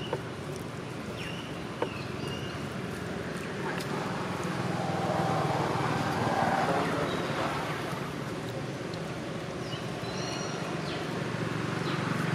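Steady low hum of a vehicle engine, swelling a little about five to seven seconds in, with a few short high chirps on top.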